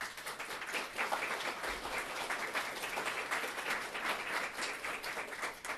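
Audience applauding, the clapping starting all at once.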